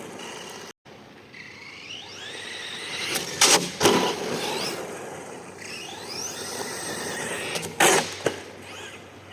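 Arrma Senton 3S RC car's electric motor whining, rising in pitch again and again as it accelerates, with tyre and road noise. There are sharp knocks a little over three seconds in, again just under four seconds in, and again near the end.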